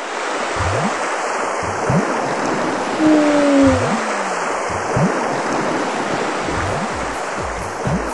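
Rushing sea-surf sound effect, a steady wash of water noise with low swooshes about once a second. About three seconds in, a single low tone slides downward in pitch.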